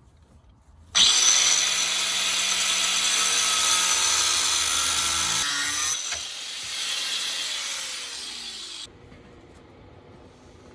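Electric power tool starting up with a rising whine about a second in, running under load for several seconds, then winding down with a falling pitch and cutting off about nine seconds in.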